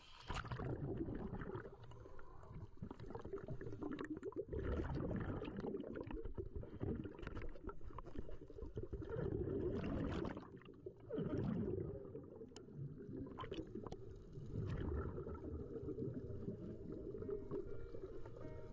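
Muffled water noise, likely from a dive, picked up by a head-mounted GoPro. It surges and fades every few seconds and carries scattered small clicks and knocks.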